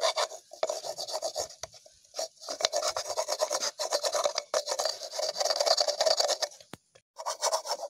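Fibrous coconut shell being scraped clean of its husk fibres with a flat metal tool, in quick rasping strokes with a short break about seven seconds in.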